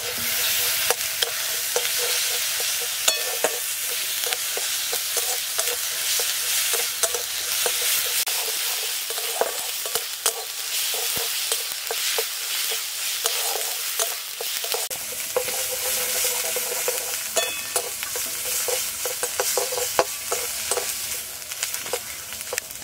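Ground spice pastes (onion, ginger-garlic and green chilli) frying and sizzling in hot mustard oil in a metal wok, a spatula repeatedly scraping and stirring them against the pan. This is the masala being fried.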